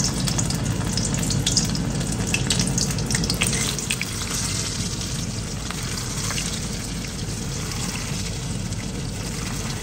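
Batter-dipped prawns frying in hot oil for tempura: a steady sizzle with sharp crackles, busiest in the first few seconds and settling to a smoother hiss.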